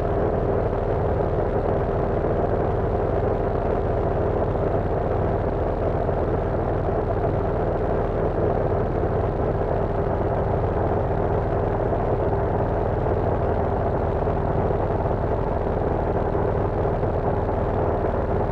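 Cessna 172's piston engine and propeller droning steadily in flight, heard inside the cabin, with one steady humming note over a low rumble.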